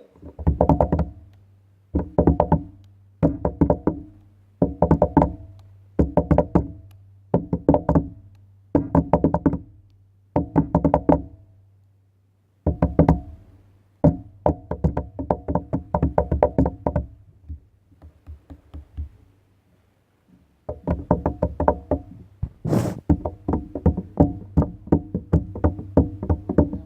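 Rapid clicking in short bursts about a second long, repeated roughly every second, later running on for several seconds at a time, over a faint steady hum.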